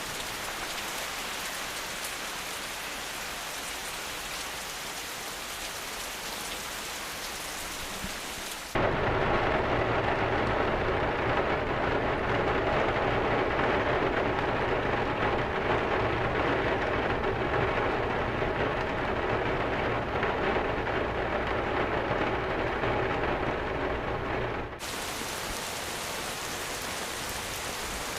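Steady rain falling, which cuts abruptly about nine seconds in to a louder, duller thunderstorm downpour with a steady low rumble under it. About sixteen seconds later that cuts abruptly back to the lighter, hissing rain.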